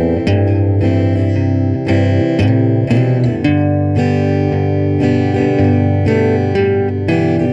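Background music: plucked guitar, several notes sounding together with frequent note changes.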